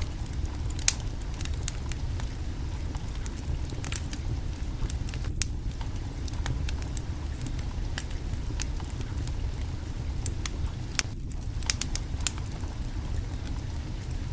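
Wood fire burning under a cooking pot: a steady low rumble of flames with frequent sharp crackles and pops of burning wood, a louder pop about a second in and a cluster of pops near the end.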